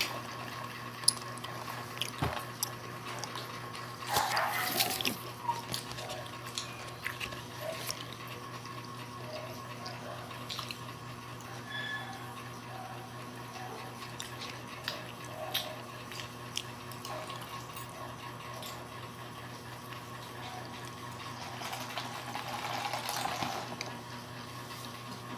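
Eating sounds: a metal fork clicking and scraping in a paper tray of takoyaki, with scattered light clicks throughout and two longer, louder noisy stretches, about four seconds in and near the end, over a steady hum.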